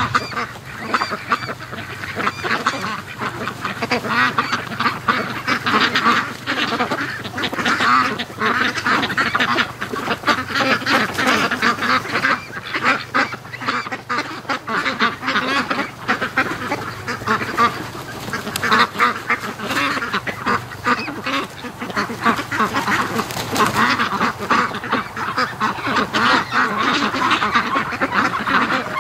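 A flock of domestic ducks, mostly Pekins, quacking without a break, with many calls overlapping.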